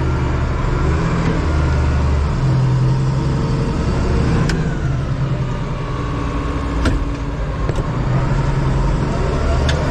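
International Harvester 1586 tractor's six-cylinder diesel engine running steadily, its low note swelling and easing a little, with a few sharp clicks over it.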